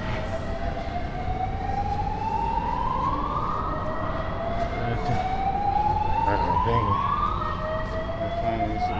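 Building fire alarm sounding a whoop tone: a pitch that climbs steadily for about three and a half seconds, cuts off, and starts again low, repeating.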